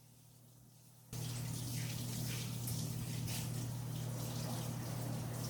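Kitchen tap turned on about a second in, water running steadily into the sink with a low hum beneath the rush.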